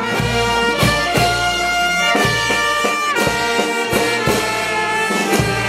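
Brass band playing: trumpets, trombones and sousaphones holding notes in harmony, with regular bass drum strokes.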